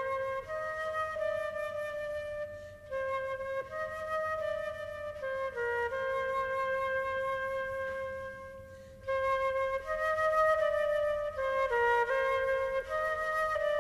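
Background music: a slow melody of long held notes, breaking off briefly about eight seconds in before resuming.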